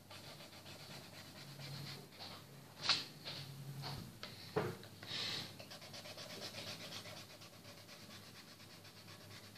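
Felt-tip marker scratching back and forth on paper as a drawing is coloured in, faint and quickly repeated, with a couple of small knocks about three and four and a half seconds in.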